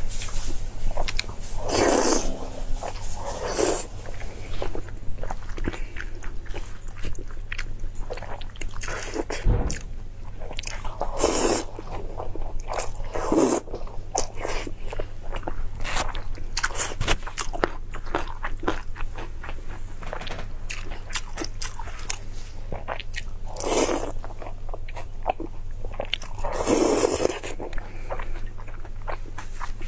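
Close-miked chewing and wet mouth sounds of someone eating saucy noodles with chopsticks: steady soft smacking and clicking, broken by about seven louder slurps.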